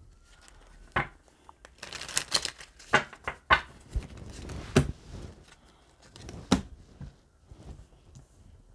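Tarot cards shuffled by hand: a string of sharp card snaps and rustles, with a denser run of shuffling about two seconds in.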